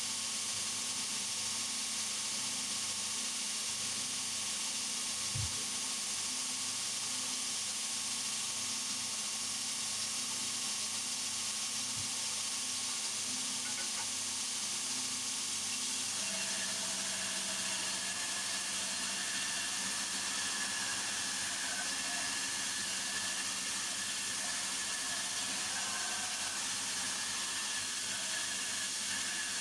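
A power tool running steadily with a hissing noise, with one low knock about five seconds in. About halfway through, a higher steady whine joins it.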